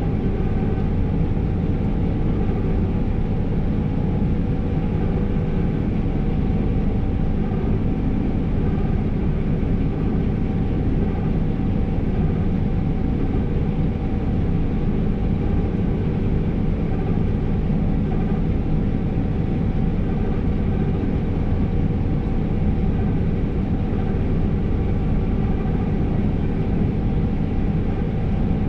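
Steady drone of a New Holland CR5.85 combine harvester heard inside its cab while harvesting, with engine and threshing machinery running under load. A few constant whining tones sit over the low rumble.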